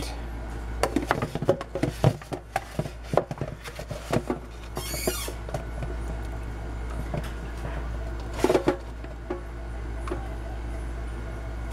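A measuring cup scooping wet, chopped watermelon rind out of a plastic colander: scattered light clicks, knocks and wet rustles, with a louder clatter about two-thirds of the way through, over a steady low hum.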